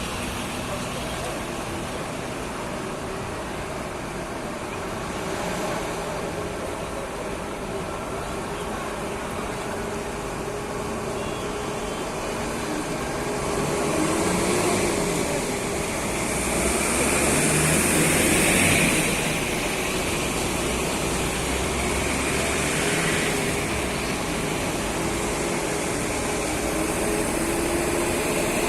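Road traffic on a flooded street: vehicle engines running steadily, with a vehicle passing louder a little past the middle, bringing a rising and falling hiss.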